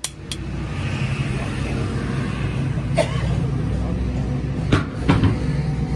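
Steady low rumble of road traffic. A few sharp knocks stand out, two of them about five seconds in.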